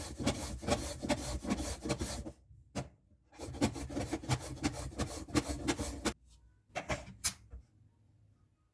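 A carrot being grated, with quick rasping strokes several times a second: a run of about two seconds, a short break, then about three seconds more and a few last strokes.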